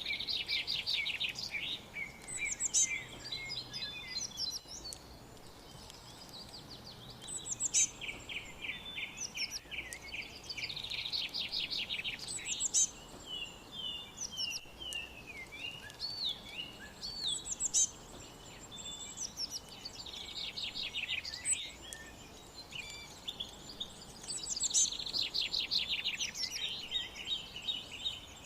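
Several songbirds singing and chirping, with fast trilled phrases and short whistled notes recurring every few seconds over a faint steady background hiss.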